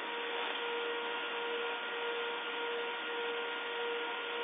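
Steady hiss with a faint, even hum: room tone picked up through a phone's low-quality microphone.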